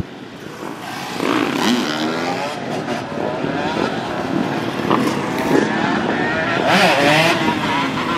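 Supermoto motorcycle engines revving, the pitch rising and falling again and again as the riders work the throttle through wheelies.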